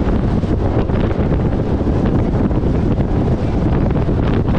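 Heavy wind buffeting the microphone on a speedboat running at speed over open sea, with the rush of water and spray off the hull underneath.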